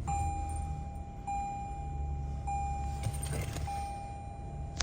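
2024 Toyota Tundra's 3.5-litre V6 idling just after start-up. Over it, the dashboard chime sounds one clear tone that repeats about every 1.2 seconds.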